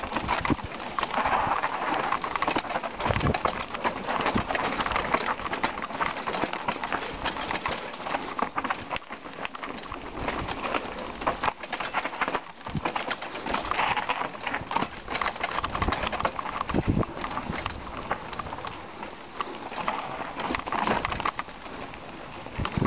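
Mountain bike clattering down a rough, rocky dirt trail at speed: tyres crunching over stones and loose dirt, with a dense, uneven rattle of knocks from the bike jolting over bumps.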